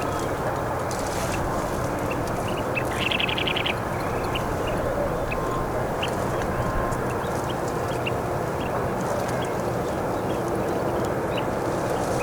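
Kentish plover calling with short, high single notes and one brief rapid trill about three seconds in, over a steady low rushing noise.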